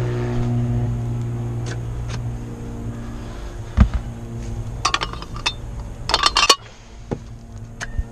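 A single thump about four seconds in, then light clinking and rattling as charging adapters and cable are handled in a Tesla Model 3's trunk. Under it runs a steady low hum that cuts out about six and a half seconds in.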